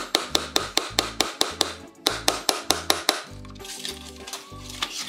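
Rapid, even hammer taps on the old wooden wagon tailgate, about five a second, pausing briefly and stopping about three seconds in. Background music with a repeating bass line plays throughout.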